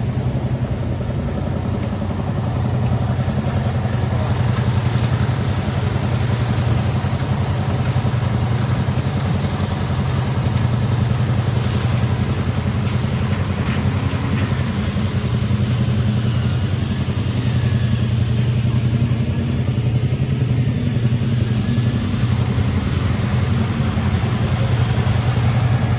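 An engine running steadily at a constant speed, with a strong low hum.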